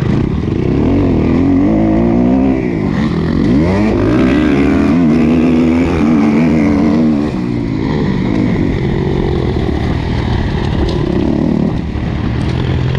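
Motocross bike engine heard from on board, revving hard with its pitch climbing and dropping again and again as the throttle opens and closes through the gears and corners.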